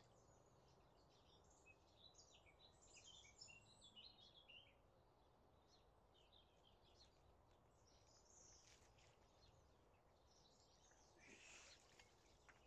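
Near silence: faint songbirds chirping and singing in scattered phrases, with a soft splash of water about a second before the end as a landing net goes into the lake.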